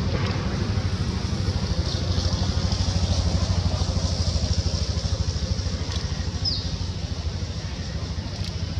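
An engine running steadily with a low, evenly pulsing throb. A brief high chirp comes about six and a half seconds in.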